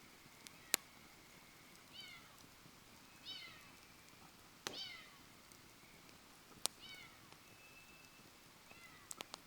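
Campfire wood crackling with a few sharp pops, while an animal gives short, high, falling calls about five times, meow-like.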